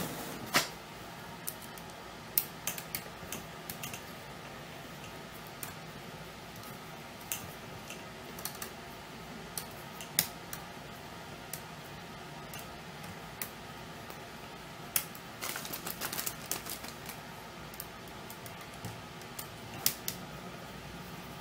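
Scattered small clicks and taps of a tiny Phillips screwdriver and loose screws working against a laptop screen's metal side brackets, with a quick run of ticks about fifteen seconds in.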